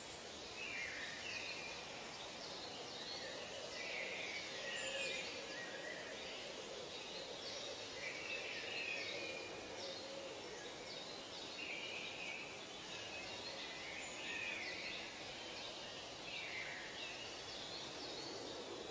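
Nature ambience: birds calling in short, repeated chirps and trills, about one a second, over a steady background hiss.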